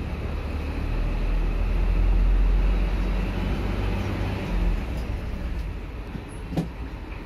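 Bus engine rumbling low as the bus creeps forward across the ferry's steel vehicle deck, heard from inside the cab; it swells about a second in and then eases off. A single sharp knock sounds near the end.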